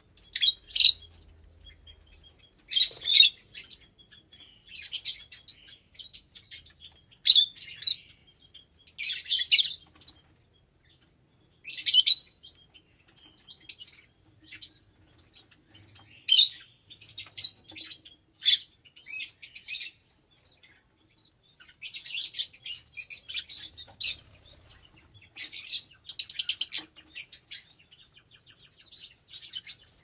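Small pet parrots chirping in short, high-pitched bursts every second or two, with a few brief pauses between the bouts.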